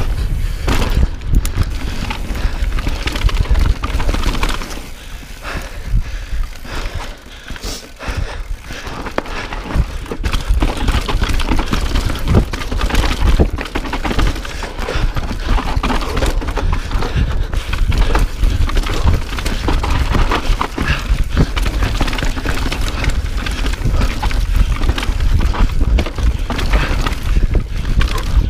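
Mountain bike descending a dirt trail at speed: tyres running over dirt and rocks and the bike rattling with a constant clatter of small knocks, with wind rumbling on the microphone. The noise eases for a few seconds about five seconds in, then builds again.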